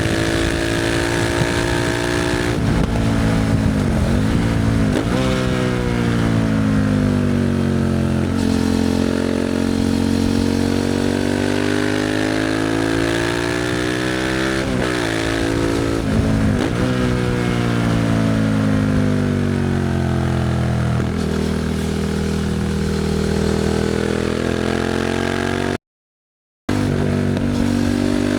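Suzuki SV650's 90-degree V-twin through a Leo Vince aftermarket exhaust, ridden on the road: the engine note climbs and falls over and over, with several quick sharp dips in pitch. The sound cuts out completely for under a second near the end.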